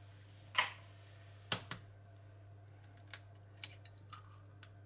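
Scattered sharp clicks and taps, the loudest about half a second in and a close pair about a second later: an egg shell being tapped and cracked against a ceramic baking dish.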